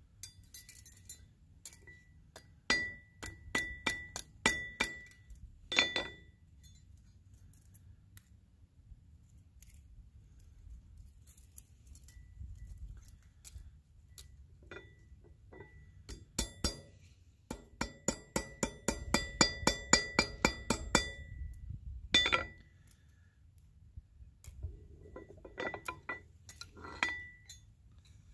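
Hammer striking copper wire on a steel rail-section anvil: sharp metallic clinks, each with a short ring. The blows come in spaced groups, with a quicker run of blows lasting about five seconds past the middle.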